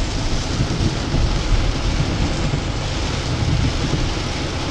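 Torrential rain hitting the roof and windshield of a moving car, heard from inside the cabin as a steady, even noise over the low rumble of the car on a wet road.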